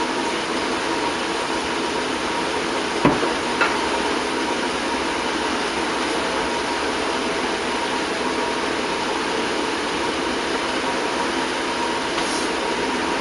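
Steady mechanical hum with a faint high tone under it, and two sharp knocks about three seconds in, half a second apart, from metal snake tongs and hook striking the enclosure.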